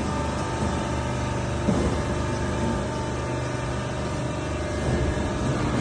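Hydraulic fully automatic baler running: a steady machine hum with several held tones and constant rattling.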